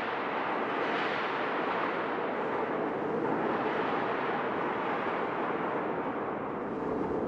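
Strong wind buffeting the camera's microphone, a steady heavy rushing noise that masks everything else.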